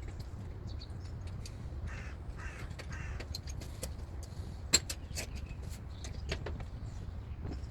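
Scattered light metallic clicks and taps, like hand tools and parts being handled, over a steady low rumble, with one sharper knock a little before five seconds in. Two short raspy calls come about two seconds in.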